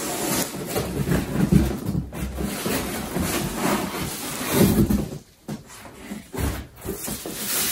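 Cardboard rubbing and scraping as a flat cardboard mailer is worked out of a cardboard shipping box, dipping quieter for a moment about five seconds in.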